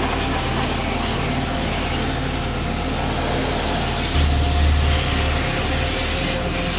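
Pressure washer running, its motor humming steadily while the water jet hisses against the underside of the hood and the engine bay, with a louder low rumble for about a second partway through. The worker finds the spray not strong enough for the hardened mud.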